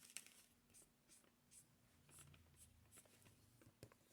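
Near silence with faint, scattered light scratches and rustles, small handling sounds.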